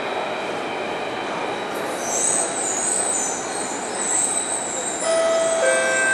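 Circle Line Alstom Metropolis C830 metro train braking to a stop in a station, heard from inside the carriage: steady running noise, a high wavering squeal from about two seconds in, and a few steady tones near the end as the train comes to rest.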